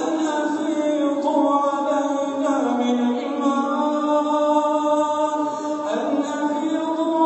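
Quran recitation: a single voice chanting in melodic tajweed style, holding long drawn-out notes that shift pitch a couple of times.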